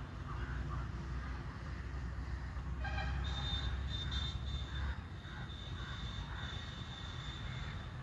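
Outdoor ambience of distant road traffic: the low rumble of a vehicle, which dies away about five seconds in, and a short horn toot about three seconds in. From the toot onward a steady high-pitched whine carries on.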